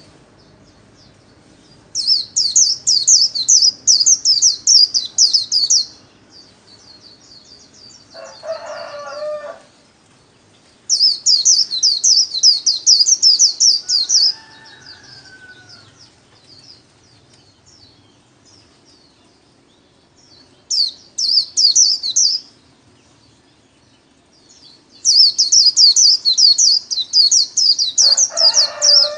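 Male white-eye singing its rapid, high twittering 'líu' song in four bursts of a few seconds each, with pauses between. Twice a short, lower call of about a second sounds beneath the song.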